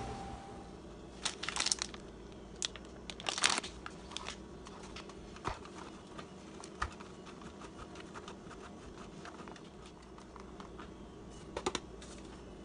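White cheddar rubbed against a metal box grater: a run of quick, faint scraping strokes, with a few louder rustling, crinkling bursts about a second in, around three and a half seconds in, and near the end.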